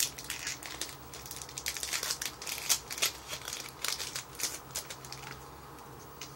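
Foil booster-pack wrapper being torn open and crinkled by hand: a dense run of crackles that dies away about five seconds in.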